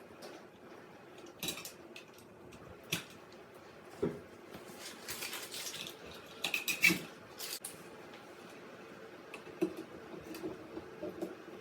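Handling noises: scattered clinks, taps and rustles of tools and light-fixture parts being handled, with a sharper knock about seven seconds in.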